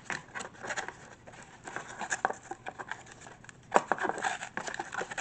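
Toy packaging being torn open by hand: cardboard and plastic crackling and rustling in irregular clicks, with one sharper snap about four seconds in.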